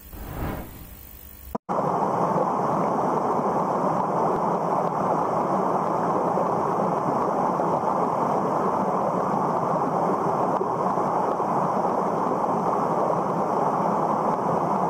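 Steady, muffled rushing noise of underwater ambience, with no distinct sounds in it. It begins with a sudden cut about a second and a half in, after a faint tail of an intro sound.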